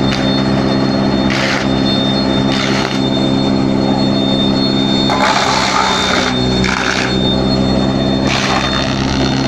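Wood chipper-shredder (wood powder making machine) running with a steady motor hum, with bursts of crunching noise as pieces of wood are crushed, about five times, the longest around the middle.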